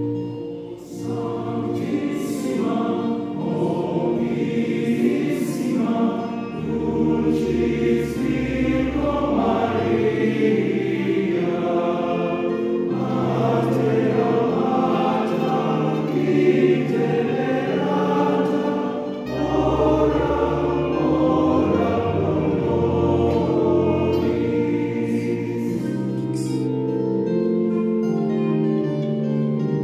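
Church choir singing a hymn, accompanied by sustained keyboard chords with a bass line that changes every couple of seconds.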